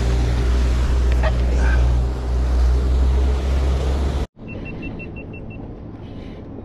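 Boat's outboard motor running at speed with wind and water rushing past; it cuts off suddenly about four seconds in. A quieter steady wash follows, with a quick run of about six short high electronic beeps.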